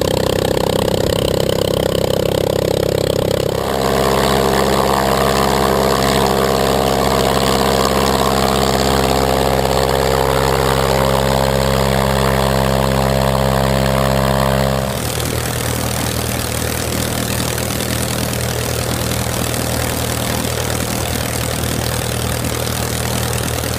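Walter Minor inverted inline air-cooled aircraft engines running steadily with their propellers turning. The engine sound changes abruptly about four seconds in and again about fifteen seconds in, as one recording gives way to another.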